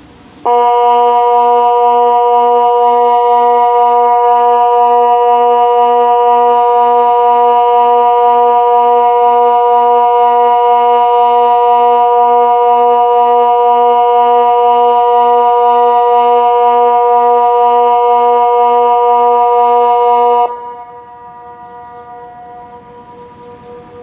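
Kockum Sonics Delta 4 electronic siren sounding the Swiss water alarm: one steady, unwavering tone held for about 20 seconds, one of the long tones of the water-alarm signal. It cuts off suddenly, and a fainter tone lingers after.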